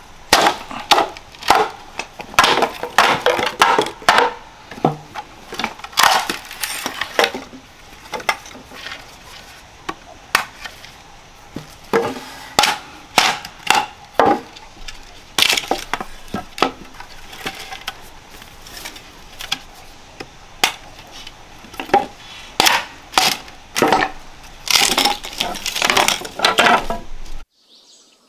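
Wood being chopped and broken: an irregular run of sharp knocks and cracks, some in quick clusters, stopping abruptly shortly before the end.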